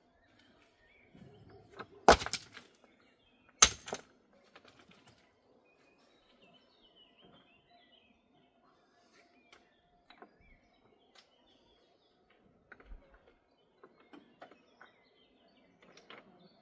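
Two sharp knocks about a second and a half apart, a couple of seconds in, followed by scattered faint clicks and light handling noise. Faint bird chirps and a faint steady hum sit underneath.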